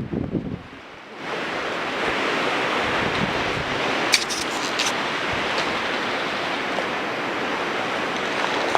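Steady rushing wind noise on the action camera's microphone, setting in about a second in and holding even, with a couple of faint clicks around four to five seconds.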